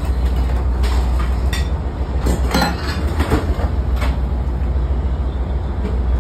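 Heavy, steady low rumble of an articulated tug boat underway in rough seas, heard from inside its galley. Several clattering knocks of loose things rattle in the first few seconds.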